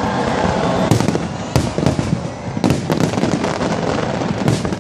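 Fireworks display: a string of sharp bangs from bursting shells, about seven in under five seconds, some in quick pairs, over a continuous noisy rumble.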